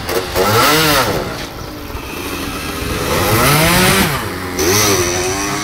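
Small trail motorcycle pulling away, the engine note climbing and dropping three times as it is revved through the gears.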